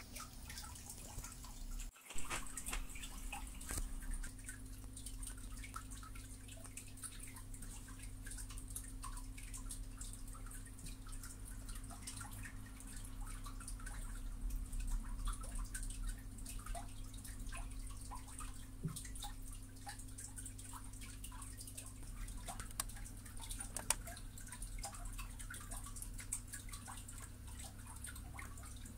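Quiet room tone with a steady low hum, over which come scattered faint clicks and taps from a gaming mouse being handled and its buttons clicked.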